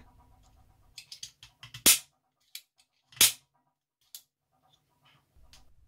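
3D-printed disc shooter dry-fired without a disc: the slider is drawn back with light plastic clicks, then the printed plastic spring snaps it forward with a sharp crack. This happens twice, a little over a second apart.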